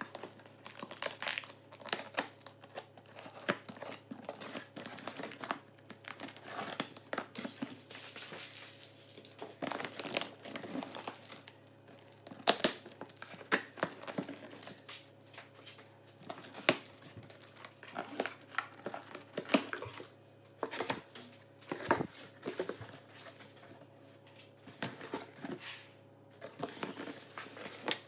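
Clear plastic packing tape being peeled and torn off a cardboard box and the cardboard flap pulled open, then the contents handled: irregular ripping, crinkling and cardboard rustling, with sharper louder rips now and then.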